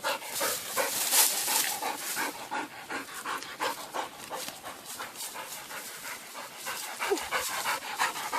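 Pitbull panting hard, in quick rhythmic breaths of about three a second, easing off near the end.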